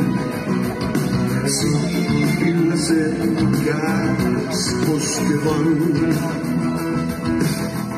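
Live rock band playing an instrumental passage: electric guitars and bass over drums, with cymbal hits.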